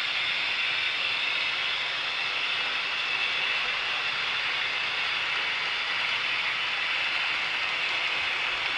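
Model train running along the layout track: a steady, even high-pitched rushing noise that holds the same level throughout.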